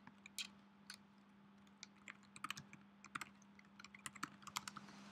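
Typing on a computer keyboard: irregular key clicks, coming quicker in the middle, over a faint steady low hum.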